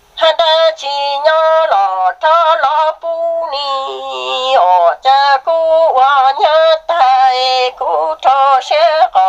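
An unaccompanied voice singing kwv txhiaj, Hmong sung poetry, as a sad lament. It sings high, wavering held notes with heavy vibrato in short phrases, starting just after the beginning and breaking off near the end.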